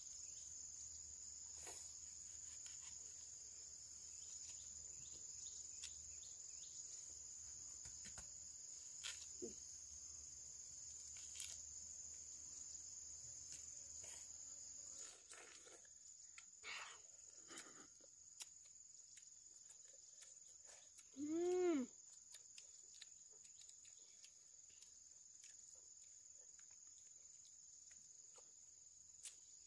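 Steady high-pitched chirring of insects, with scattered light clicks and knocks. About 21 seconds in comes a short call that rises and falls in pitch.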